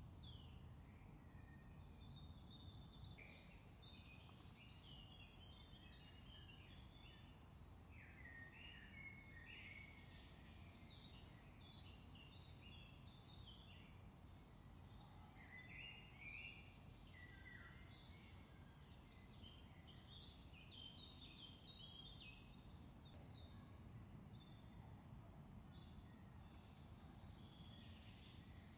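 Faint songbird song: quick, varied phrases from small birds that start about two seconds in and thin out near the end, over a low steady background rumble.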